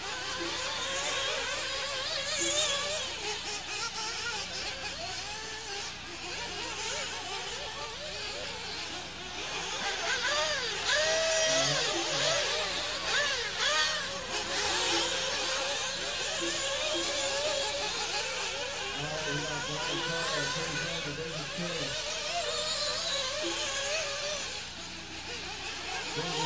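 Several nitro RC buggy engines running at high revs, their high whine rising and falling in pitch as the cars accelerate and brake, loudest about halfway through.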